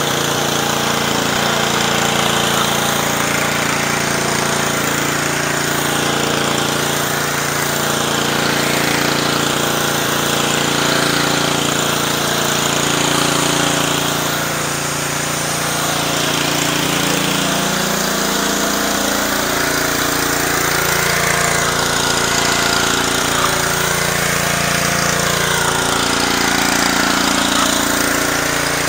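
Simpson pressure washer's Honda GCV190 single-cylinder engine running steadily under load, with the hiss of high-pressure water spraying from a Ryobi water broom onto concrete.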